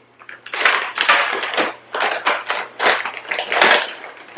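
Plastic snack bag crinkling and rustling in quick irregular bursts as it is handled and opened.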